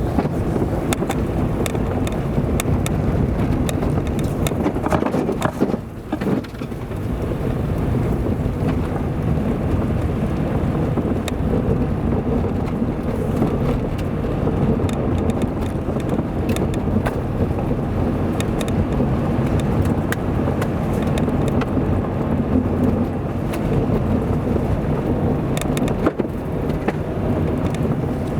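Car driving on an unpaved road: steady engine and road noise with many scattered clicks and knocks, and a brief drop in level about six seconds in.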